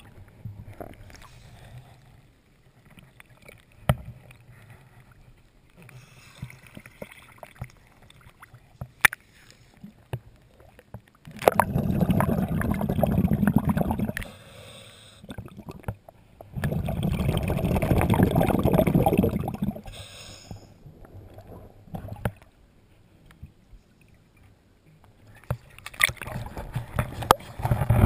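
Underwater bubbling from a scuba diver's regulator exhaust: two long rushes of exhaled bubbles, each about three seconds, some five seconds apart. A few sharp knocks sound before them, and more irregular bubbling near the end.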